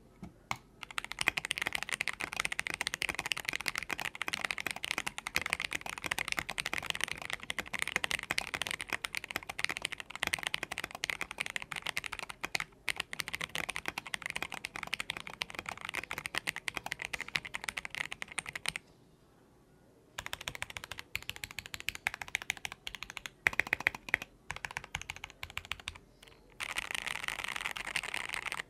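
Typing on an Akko ACR81 mechanical keyboard fitted with JWK Lagoon switches: rapid continuous keystrokes, a pause of about a second two-thirds of the way in, a few scattered presses, then fast typing again near the end.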